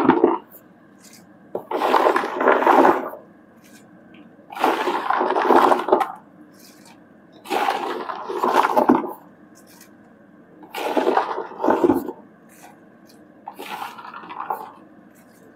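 A wooden spatula stirring a pan of sticky dried jujubes cooked in jaggery, in five strokes about three seconds apart, each a short scraping, shuffling noise.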